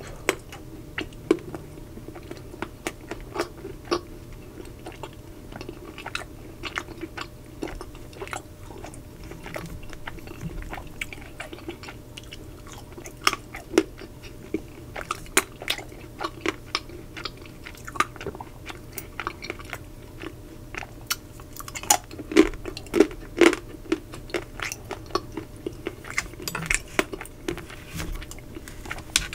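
Chewing and crunching of the thick chocolate shell of a double sea salt caramel Magnum ice cream, with many short sharp crackles throughout, coming thickest about three quarters of the way through.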